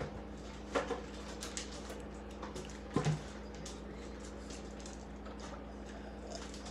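A child gulping a drink from a plastic tumbler: two short swallowing sounds, about a second in and about three seconds in, over a steady low electrical hum.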